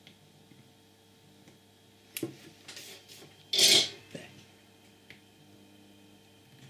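Handling noise over a faint steady hum: a sharp click about two seconds in, some rustling, then a louder half-second rush of noise and a few small clicks.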